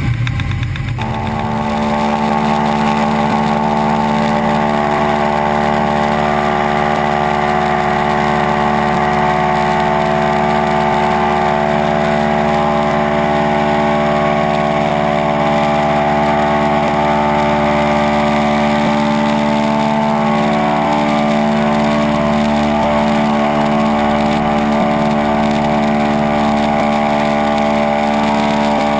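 De Havilland Canada DHC-2 Beaver's Pratt & Whitney R-985 radial engine and propeller running steadily at take-off power through the take-off run and climb-out.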